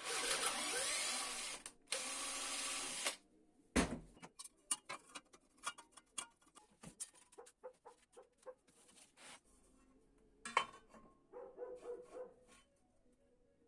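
Homemade belt grinder grinding metal in two short passes, each a loud even hiss that stops abruptly, followed by a thump and a long run of scattered clicks and knocks as metal pieces are handled.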